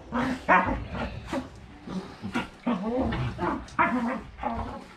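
Dogs play-fighting, a basset hound and a miniature pinscher, growling and barking in a quick string of short calls, roughly two a second.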